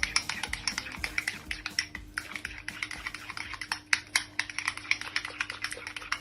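Food frying in a pan: a dense, irregular crackle of spitting oil.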